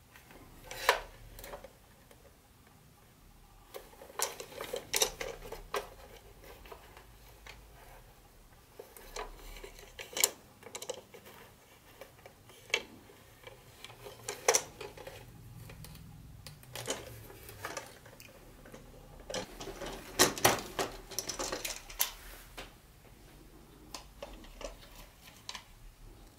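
Plastic toy train cars being handled: irregular clicks, taps and short rattles as the cars are turned over and set down, with the busiest clatter about four to six seconds in and again around twenty seconds in.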